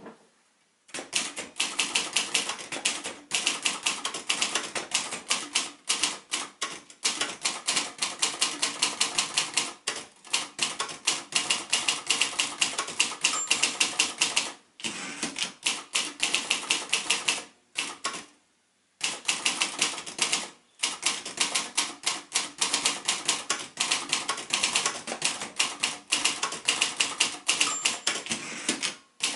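Royal Mercury ultraportable manual typewriter, built by Silver-Seiko, being typed on: rapid runs of key strikes with a few short pauses.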